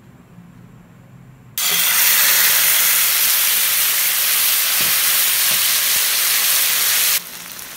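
Cooked chicken curry hitting hot oil in a non-stick frying pan: a loud sizzle starts suddenly about a second and a half in and runs steadily, dropping to a quieter sizzle near the end.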